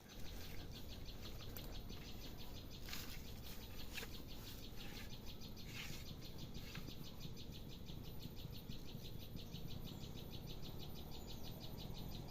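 A few short bird chirps in the first half, over a faint, steady, rapidly pulsing insect chorus of about seven pulses a second.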